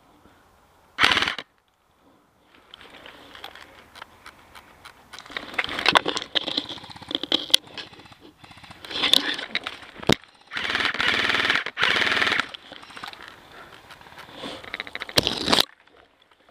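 Airsoft guns firing in rapid automatic bursts: a short burst about a second in, scattered shots in the middle, a long burst of about two seconds, and a last short burst near the end.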